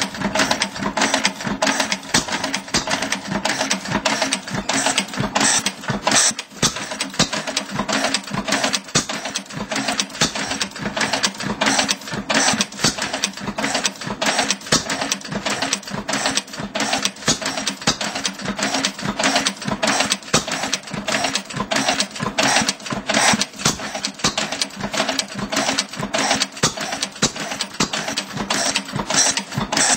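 1911 Langwill Bros 5 hp stationary engine running steadily, with a fast, even mechanical clatter from its moving parts.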